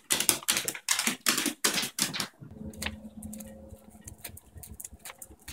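Pembroke Welsh Corgi's claws clicking rapidly on a hardwood floor as he trots, several clicks a second. About two and a half seconds in the clicking thins out to a few scattered ticks, and a steady low hum comes in.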